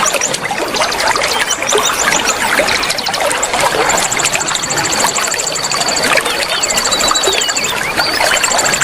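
Flowing water trickling steadily, overlaid with songbirds' high, rapid trills and short chirps that come and go throughout.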